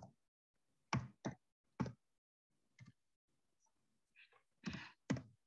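Computer keyboard keys tapped one at a time: several short, faint clicks spread irregularly, heard through a video call's microphone that drops to silence between them.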